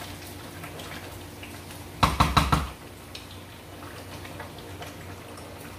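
Four or five quick knocks against a metal cooking pot on the stove, about two seconds in.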